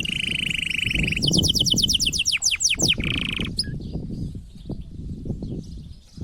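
Male domestic canary singing in its rolling tours: a fast buzzing trill, then a run of about a dozen quick downward-sweeping whistled notes, then another short buzzing roll, stopping about three and a half seconds in. This is the excited song of a male in breeding condition, used to bring a hen into breeding condition. Faint chirps and low background noise follow.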